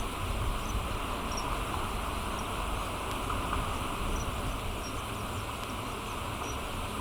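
Steady outdoor ambience: an even hiss, with faint, very short high chirps scattered through it.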